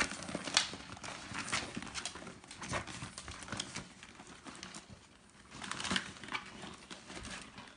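Yorkshire terrier rummaging in a handbag: irregular scratching and rustling from paws and body against the bag, busiest about six seconds in.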